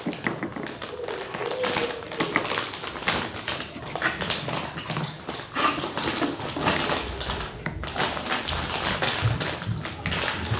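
Popcorn being chewed and crunched close to the microphone: a dense, irregular run of small clicks.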